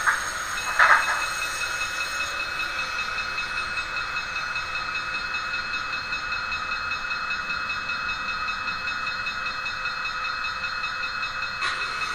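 HO-scale model steam locomotive running on a model railway layout: a steady high whine, with a short loud blast about a second in.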